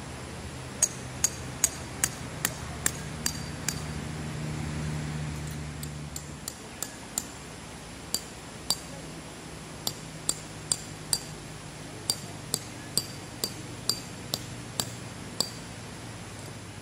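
Metal tent pegs being hammered into the ground: runs of sharp ringing strikes, about two or three a second, with short pauses between the runs.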